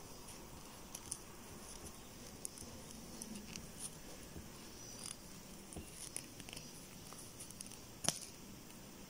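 Crochet hook and yarn being worked by hand: faint scattered ticks and rustles as loops are pulled through stitches, with one sharper click about eight seconds in.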